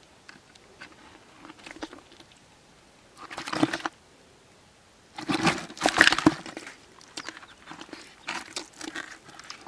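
Hands rummaging among live fish in a mud-caked plastic bucket, crunching and scraping in three bursts, the loudest about five to six and a half seconds in.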